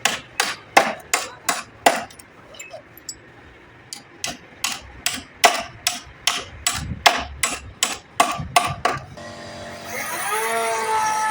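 Hammer blows in a steady rhythm of about three a second, pausing for about two seconds and then going on for about five more. Near the end, music with held, gliding tones comes in.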